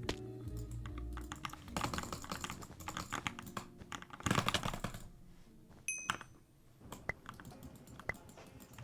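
Fast typing on an Anne Pro 2 mechanical keyboard with lubed switches and a foam mod: a dense run of key clacks for about five seconds, thinning to a few separate clicks after that.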